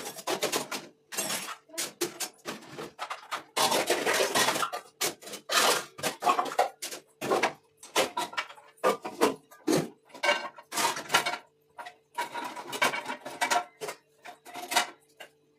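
Stainless steel plates, bowls and pans clattering and clinking as they are set into and hung on a stainless steel wall-mounted dish rack, in an irregular string of metal knocks with short ringing tails.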